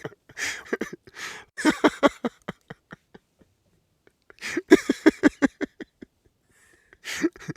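Men laughing in two bouts of rapid 'ha-ha-ha' pulses that trail off, the second starting after a short pause about four and a half seconds in.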